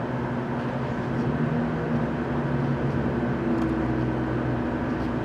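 Steady drone of distant engine noise, with a few held hum tones that come and go.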